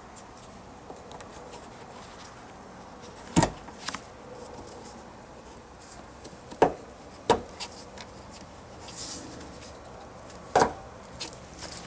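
A few sharp clicks and knocks spaced a few seconds apart, with a brief rub: hands handling a van's plastic tail lamp assembly and its push-in clips.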